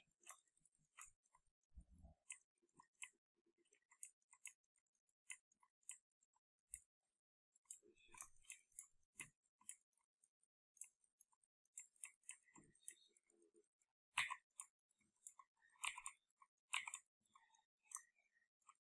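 Faint, scattered clicks and taps of computer input at the desk, mouse and keyboard, coming singly and in small irregular clusters, busier toward the end.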